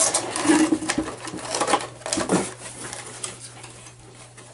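Cardboard and plastic packaging rustling and clicking as a boxed figure set is pulled out of a shipping box, busiest in the first half and quieter after, with two short voice-like noises mixed in.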